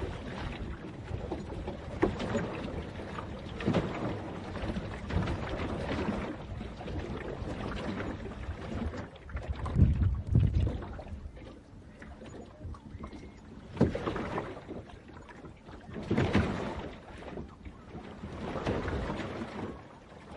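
Water splashing and sloshing in irregular surges, with several louder splashes scattered through.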